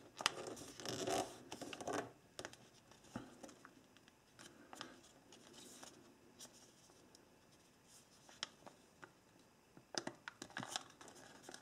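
A sheet of printer paper being folded and creased by hand, crinkling and scratching as it is pressed and handled. The crackling is busiest in the first two seconds, thins out to scattered faint crackles, and picks up again about ten seconds in as the folded piece is pulled open.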